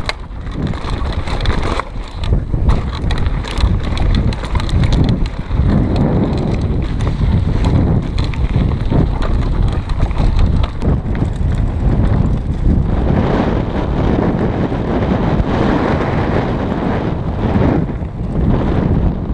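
Wind buffeting the microphone of a camera on a downhill mountain bike at speed. Under it, the tyres run over dirt and gravel, and the bike rattles and clatters over rough ground, most densely in the first half.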